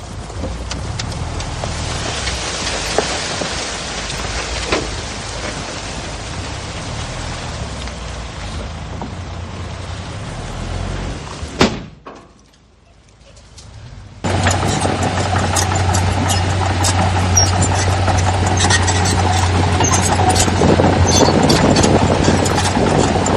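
Diesel engines of heavy earthmoving machinery running. About 12 s in the sound cuts off sharply for about two seconds, then returns louder with a steady low drone and frequent clanking.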